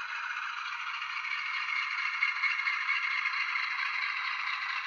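ESU LokSound 5 decoder in an Atlas HO-scale GE B23-7 model playing the diesel engine sound at throttle notch four through the model's small speaker: a steady, thin rattling chug with no bass.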